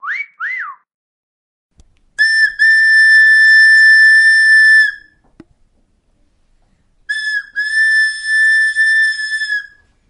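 Two quick rising chirps from a clay bird whistle, then a metal referee whistle blown in two long steady blasts, the first about two seconds in and the second about seven seconds in, each opening with a couple of short toots.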